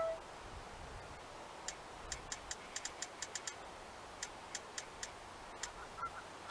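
Clicking from a small handheld spirit-box device being set up: about fifteen faint sharp clicks, irregularly spaced over some four seconds, then a short high beep near the end.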